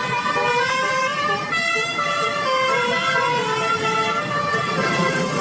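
Indonesian bus 'telolet' musical horn playing a tune: a string of held notes stepping up and down in pitch, a few notes a second, without a break.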